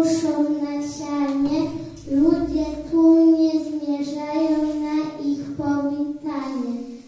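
A young girl singing a solo into a handheld microphone: one voice holding long, steady notes in phrases, with short breaks between phrases about two seconds in and near the end.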